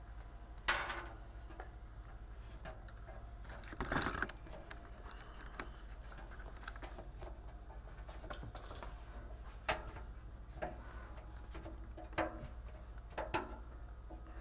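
A few scattered light knocks and clicks from handling a metal wall-mount cabinet held against the wall, the loudest about four seconds in, over a low steady hum.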